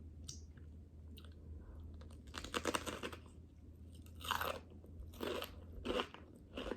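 Close to the microphone, a bite into a raw jalapeño stuffed with cream cheese and crushed Takis chips: a crackly crunch starts about two seconds in, followed by several crunchy chews roughly a second apart.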